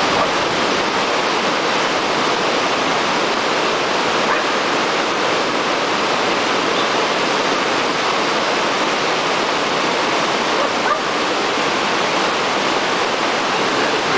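Water pouring over a river weir: a steady, unbroken rush of white water.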